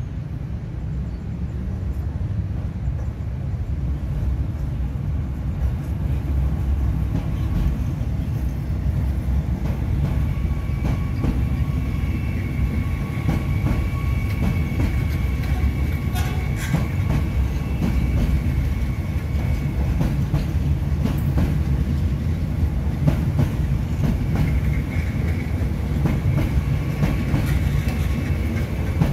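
JR 205 series electric commuter train approaching and passing close by, with a steady rumble of wheels on rail and clickety-clack over the rail joints. A high steady whine comes in about ten seconds in and again near the end.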